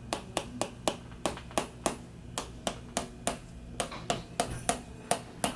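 Handheld chiropractic adjusting instrument clicking in a steady rhythm, about three sharp clicks a second, as it works over the lower back.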